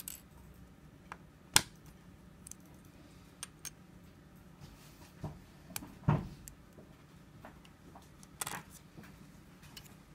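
Small plastic parts of an SC fast fiber-optic connector clicking and tapping as they are pulled apart by hand and put down on a wooden desk: scattered sharp clicks, the loudest about one and a half seconds in, and a duller knock about six seconds in.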